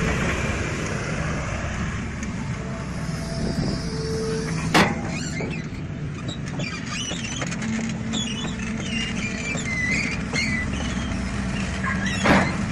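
A heavy machine's engine runs steadily, with two sharp, loud bangs: one about five seconds in and one near the end.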